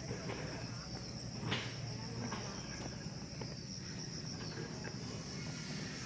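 A steady high-pitched insect chorus drones throughout, with footsteps on an asphalt road scuffing about every two-thirds of a second; the loudest step comes about a second and a half in.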